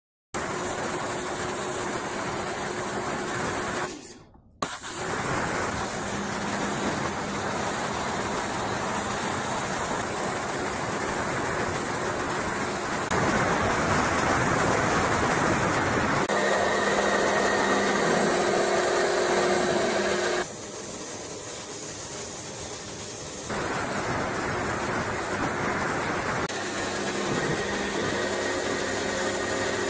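Small electric pressure washer running, its motor and pump humming steadily under the hiss of the high-pressure water jet hitting wet pavement. The sound cuts out briefly about four seconds in and changes level several times, as at edits between shots.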